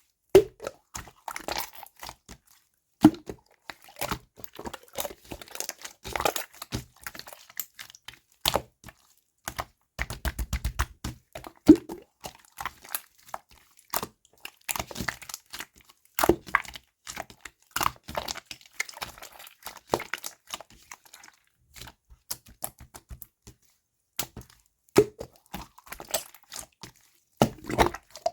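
Slime being squeezed, pressed and stretched by hand, giving irregular sticky clicks, pops and crackles, with a couple of quick runs of rapid clicks.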